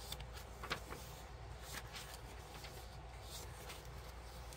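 Pages of a handmade paper journal being turned by hand: soft paper rustles and a few light ticks, the sharpest about a second in, over a faint steady low hum.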